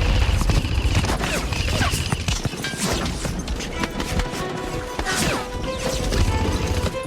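Background music with a steady low beat, mixed with rapid bursts of airsoft gun fire and sharp knocks.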